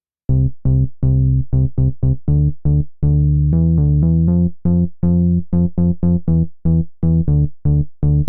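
Outro music: a synthesizer plays a run of short, low pitched notes, about three a second, starting a moment after silence.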